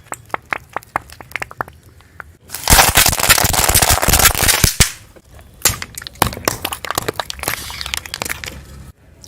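Brittle objects being crushed under a car's tyres: scattered sharp cracks, then a loud dense burst of crackling and crunching about three seconds in, then more sharp cracks and crackling.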